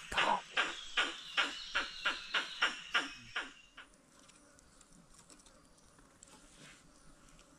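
An animal calling in a fast, even series of sharp calls, about three a second, over a thin steady whine like an insect's; both stop abruptly about three and a half seconds in, leaving faint outdoor background.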